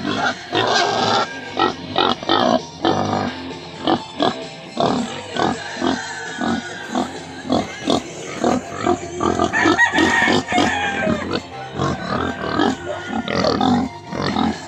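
Several young pigs grunting close up, short grunts coming about twice a second, with music playing underneath.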